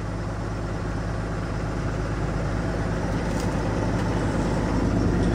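Diesel engine of an International medium-duty truck idling steadily, heard from inside the cab, still cold just after start-up.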